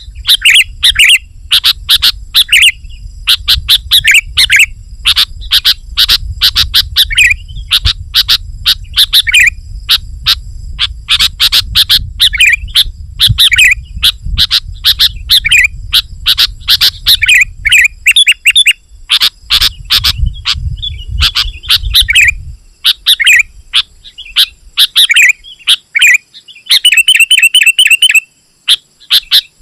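Sooty-headed bulbul (kutilang) singing in dense, rapid phrases of short sharp chirping notes, with a fast trill near the end. A low rumble runs under the song until about two-thirds of the way through.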